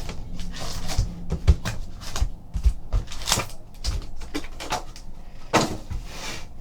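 A trading card box and its packs being handled and opened by hand: a string of small cardboard clicks and knocks, with a longer rustle near the end.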